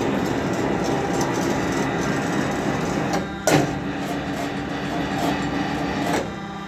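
Carpathian SMFA 110 automatic band sawmill running under its electric drive, a steady mechanical din with a hum through it. There is a sharp metallic clunk about halfway through, and the noise eases a little near the end.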